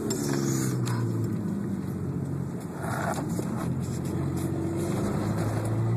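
Car engine heard from inside the cabin, accelerating hard: its pitch drops once just after the start, as at a gear change, and climbs steadily again near the end.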